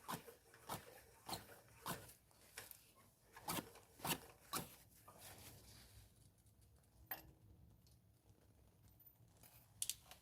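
Ratchet wrench clicking in an even rhythm, about two clicks a second, as a spark plug is unscrewed. The clicking stops about halfway through, with one more click later and a quick pair near the end.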